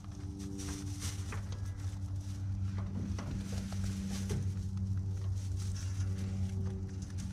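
Young rabbits rustling in hay and shuffling on a wire-mesh floor: scattered small rustles and clicks. Under them runs a steady low hum.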